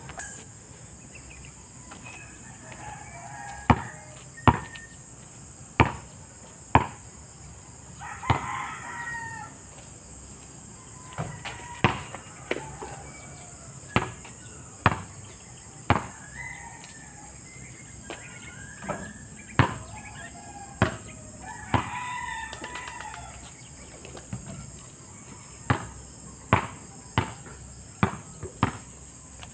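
Basketball bouncing on an asphalt court, sharp single bounces about a second apart in several runs. A rooster crows twice in the background, and a steady high-pitched hiss runs underneath.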